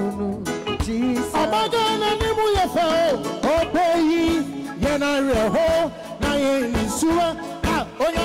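A live band plays while a male singer sings a melody with a wavering, sliding voice. Regular drum strokes run underneath.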